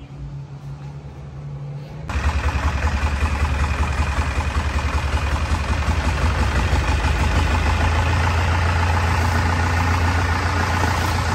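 Boat engine running loud and steady with a strong deep hum. It cuts in abruptly about two seconds in, over a quieter low hum.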